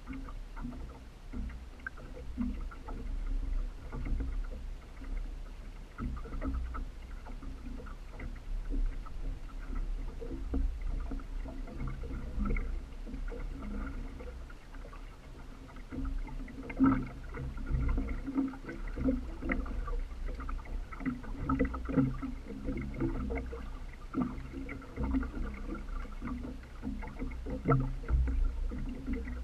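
Water sloshing and splashing against a small boat's hull, uneven with occasional louder splashes, over a low rumble.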